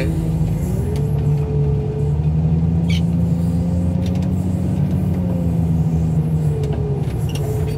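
Loader engine running steadily under load, its speed rising about a second in, holding, then easing back down near the end.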